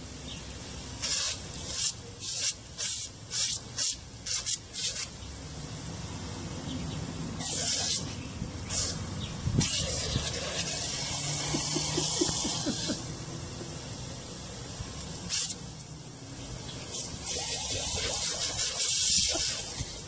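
Water jet of a pop-up lawn sprinkler hissing, broken by loud bursts of spray as a German Shorthaired Pointer bites and paws at the jet. There is a quick run of short bursts in the first few seconds, then longer stretches of spray later on.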